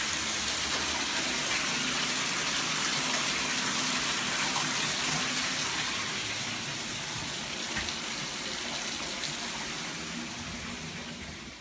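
Water running hard and steadily from a tap or faucet, slowly getting quieter through the second half and dropping off near the end.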